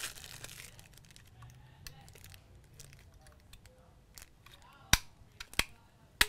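Plastic bag crinkling briefly, then three sharp plastic clicks near the end as an interchangeable wall-plug head is snapped onto a small power-supply adapter.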